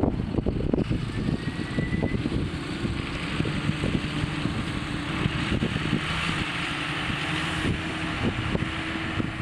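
CLAAS Arion 640 tractor's six-cylinder 6.8-litre turbodiesel running steadily, with irregular low thumps over the engine hum.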